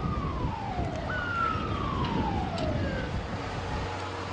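A siren sounding two falling wails, the second one longer, over a low rumble of street noise.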